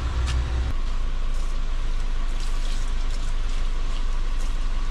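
Water running steadily from a small tap and splashing onto hands being rinsed. Under the first moment, an idling engine's low hum cuts off.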